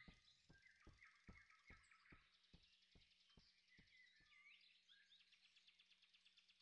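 Near silence: faint forest ambience with soft bird chirps and a faint high trill near the end. Faint ticks come about two or three a second and die away after about four seconds.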